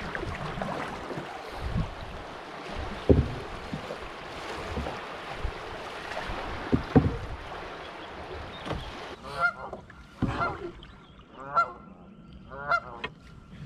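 Rushing river water past a canoe running a riffle, with two sharp knocks about three and seven seconds in. From about nine seconds the water is calm and a duck calls repeatedly, roughly once a second.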